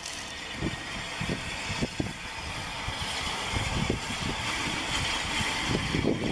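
Steam locomotive at the head of a train of coaches, with a hiss of steam that grows louder from about halfway through over scattered low knocks and clanks.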